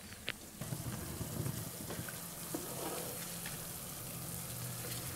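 A spatula stirring spices into a watery lentil-and-grain mixture in an aluminium pot, with soft liquid sloshing over a low steady hum.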